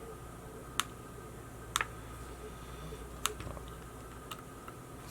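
Small, sharp clicks and taps, about four or five spaced a second or so apart, from small tools and parts being handled while the action camera is taken apart. A faint steady hum runs underneath.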